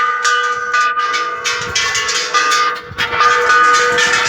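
Temple bells being struck again and again, each strike adding to a sustained, overlapping metallic ringing of several steady tones.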